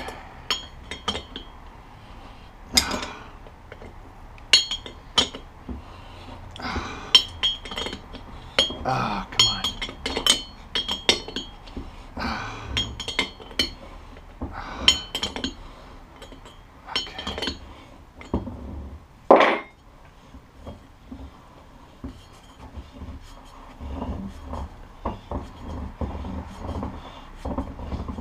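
Steel wrenches clinking and clanking against the retainer tool and hub studs as the bearing retainer of a 1975 Honda CB750 rear wheel hub is levered round and unscrewed, a ringing metal clink every second or so. One louder clank comes about two-thirds through, and softer rattling follows near the end as the retainer turns more freely.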